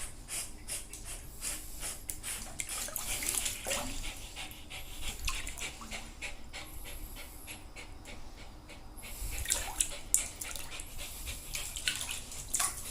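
Dog splashing about in bathwater, with the water sloshing and dripping in quick, irregular splashes.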